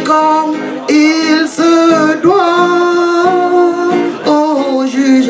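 A man sings live to his own strummed acoustic guitar, holding one long note in the middle.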